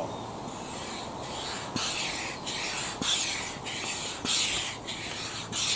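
Stand-up hand pump inflating a chamber of an Itiwit two-person inflatable kayak: a rhythmic rushing of air with each stroke, about two strokes a second.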